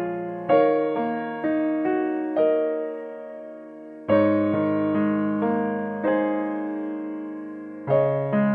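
Slow, gentle instrumental piano music: sustained chords and single melody notes struck and left to ring and fade, with a new phrase starting about four seconds in and another near the end.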